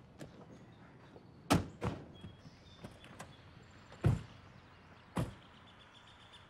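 Car doors thunking shut: two close together about a second and a half in, then one at about four seconds and another at about five, with a few lighter clicks between.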